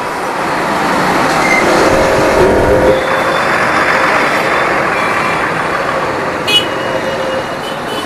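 Motorcycle riding slowly through congested city traffic: a steady rush of wind and road noise mixed with the engines of the surrounding vehicles. A short, high beep sounds about six and a half seconds in.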